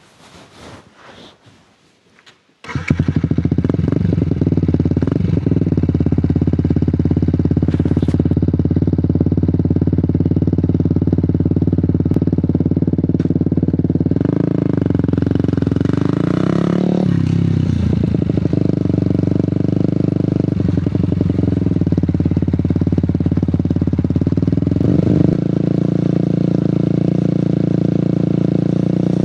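A few faint clicks, then about three seconds in a custom Fantic Caballero 125 Scrambler's single-cylinder engine starts and runs steadily, its pitch shifting a few times as the throttle changes.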